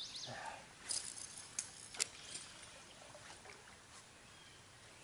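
Quiet creek ambience: a faint trickle of water with a few scattered sharp clicks.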